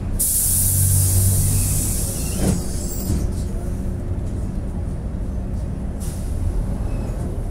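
Steady low rumble of a public-transport vehicle underway, heard from on board, with a loud hiss that starts abruptly and lasts about three seconds, and a fainter hiss about six seconds in.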